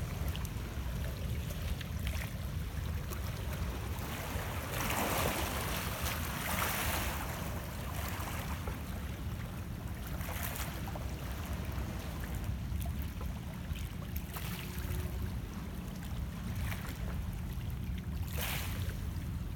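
Small lake waves lapping and splashing against shoreline rocks, with a few louder washes (the longest about five seconds in, shorter ones around ten seconds and near the end), over a steady low rumble.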